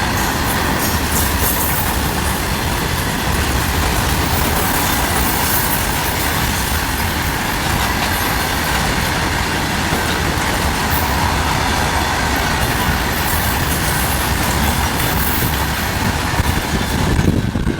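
Freight train passing at speed: a loud, steady rush and rattle of wheels on rail. The noise drops off suddenly near the end.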